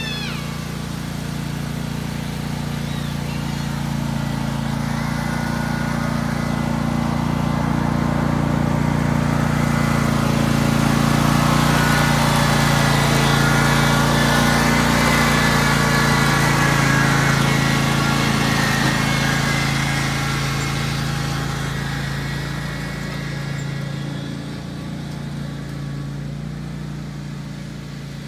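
Husqvarna riding lawn tractor's engine running steadily as it drives past, growing louder to a peak in the middle and fading as the tractor moves away.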